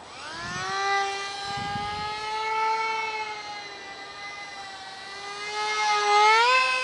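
Ultra micro RC jet's small electric motor whining in flight, its pitch climbing in the first second and then holding fairly steady. About six seconds in the whine rises in pitch again and is loudest as the plane passes close.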